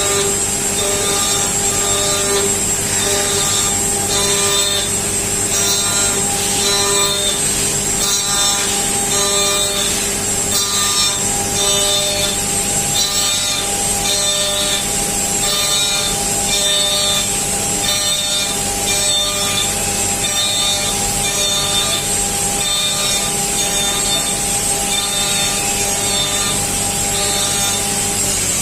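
CNC machine cutting metal: a steady high spindle whine with held lower tones, and a rasping cutting sound that repeats a little faster than once a second.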